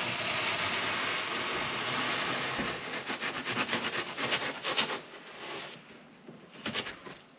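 Hand knife cutting through fiberglass ductboard, deepening an inch-deep cut around the edge to shape a male end: a steady scratchy scraping that turns into quick back-and-forth sawing strokes about three seconds in, stopping about two seconds later, with a few faint strokes near the end.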